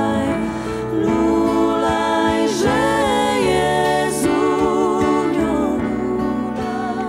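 A woman singing a Polish Christmas carol (kolęda) into a microphone, with backing vocals and piano accompaniment.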